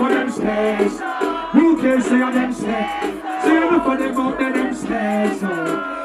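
Live dancehall music: a sung vocal melody over a steady beat.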